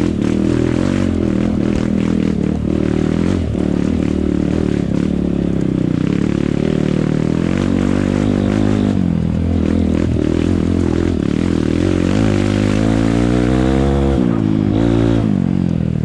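Kawasaki KLX 125 dirt bike's single-cylinder four-stroke engine working under throttle up a steep, rutted dirt trail, the revs rising and falling with the terrain, with rattling from the rough ground. About twelve seconds in the revs climb steadily, then drop off sharply about two seconds later.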